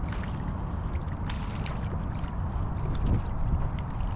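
Steady low rumble of wind and water, with scattered faint ticks and no clear pitched tone.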